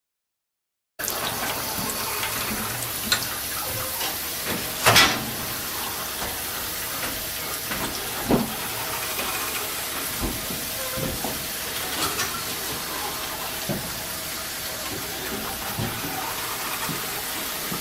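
Steady rushing hiss of a steamship's engine room, with a few sharp metallic clicks and knocks over it, the loudest about five and eight seconds in.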